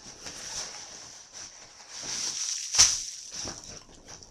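Rustling and handling noise, like packaging being moved about, with one sharp click or knock about three seconds in.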